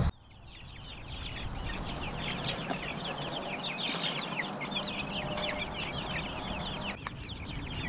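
A flock of five-week-old chicks peeping without pause, many short, high, falling chirps overlapping.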